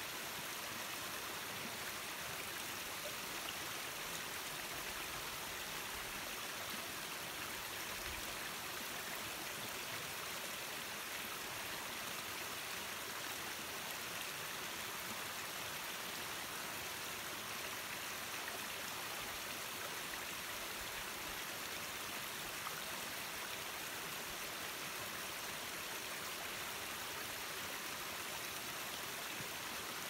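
A small waterfall splashing down a rock face into a shallow stony stream: a steady, even rush of water, more hiss than rumble.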